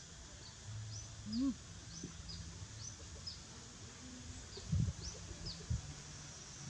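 Outdoor bird calls: short high chirps repeating about twice a second. They are joined by a few louder low sounds: a short rising call about one and a half seconds in, and two brief low knocks near the end.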